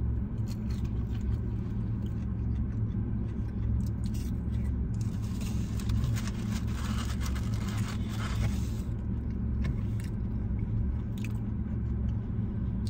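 Steady low rumble of a car running, heard from inside the cabin, with scattered clicks. A stretch of rustling and scraping comes from about five to nine seconds in.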